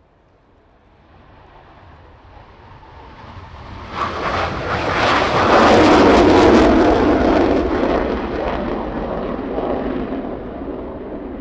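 Panavia Tornado's twin RB199 turbofans in afterburner on a takeoff run. The jet noise builds steadily, jumps to a loud crackling pass about four seconds in, and peaks around six seconds. It then slowly fades as the jet climbs away.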